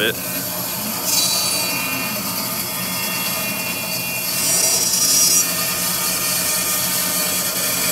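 20-inch Jet bandsaw running with a carbide-tipped Laguna Resaw King blade, cutting into a hard dogwood log to square up its edges. A steady motor hum runs throughout, and a high hiss from the blade in the wood comes in about a second in and again from about four to five and a half seconds in.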